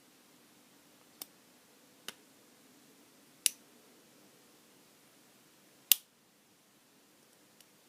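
Sharp separate clicks from picking a Brady Abus pin-tumbler lockout padlock, the pick and tension tool clicking against the pins: four clicks a second or so apart, the fourth the loudest, and a faint one near the end.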